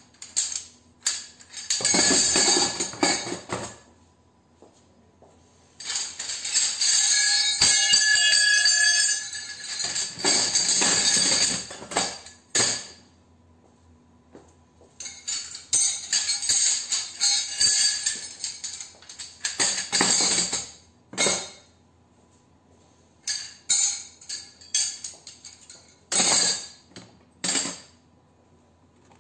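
Scrap metal pieces from stripped commercial light fixtures clattering and jingling as they are tossed by the handful into a plastic bucket. The clatter comes in several bursts of a few seconds each, with short pauses between.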